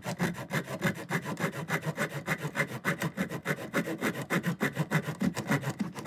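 Small serrated saw blade of a Flip Grip multitool cutting into a wooden board with rapid, even back-and-forth strokes, several a second.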